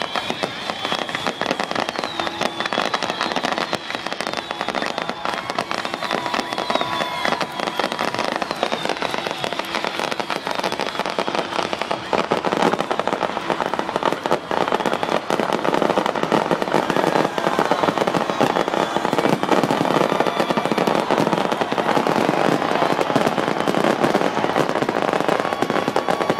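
A fireworks barrage, dense crackling and bursting in rapid succession, with high whistles in the first several seconds. It grows louder a little under halfway through.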